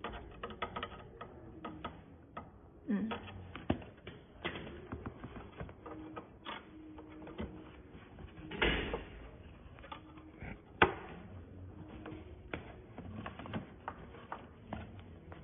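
Irregular clicks and taps of a screwdriver and fingers working on a recliner's metal reclining mechanism and its cable fittings. A few louder knocks come about 9 and 11 seconds in.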